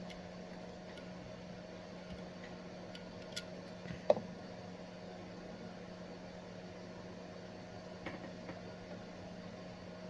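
Steady electrical hum from workbench equipment, with a few light clicks of small parts and tools being handled. The sharpest click comes about four seconds in, with fainter ones around three and a half and eight seconds.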